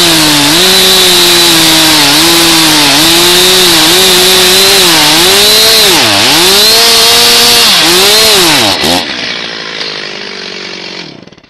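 Stihl MS361 two-stroke chainsaw cutting through fir wood at full throttle, its engine note repeatedly sagging under the load of the cut and picking back up. About nine seconds in the cut ends, and the saw runs on quieter with a falling note, then dies away near the end.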